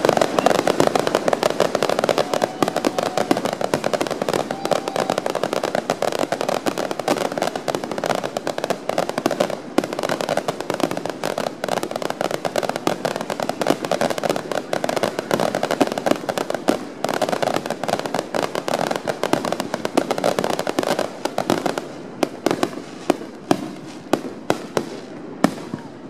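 Fireworks display: a dense, rapid barrage of aerial shell bursts, bang after bang, thinning to separate bangs about two a second near the end.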